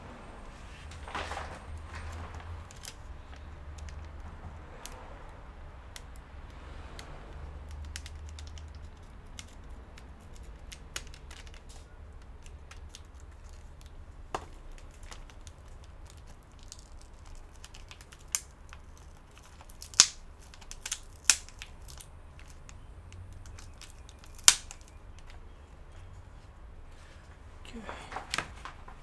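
Hands working on an opened laptop: small clicks, taps and rustles from handling the tape-wrapped display cable and LCD panel, with a few sharp clicks about two-thirds of the way in, over a low steady hum.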